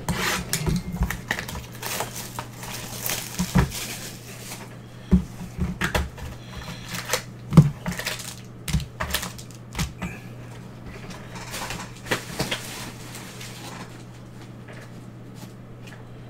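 A cardboard 2020 Panini Limited football hobby box being opened and handled: irregular taps, clicks and rustling with a few sharper knocks, thinning out after about twelve seconds to a faint steady hum.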